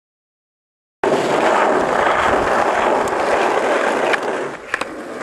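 Skateboard wheels rolling loudly over rough concrete, starting about a second in, then easing off, with a few sharp clacks of the board near the end.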